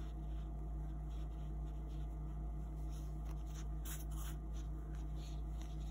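Cotton yarn drawn through crocheted cotton fabric with a yarn needle: soft scratchy rustling, loudest about four seconds in as the strand is pulled through, over a steady low hum.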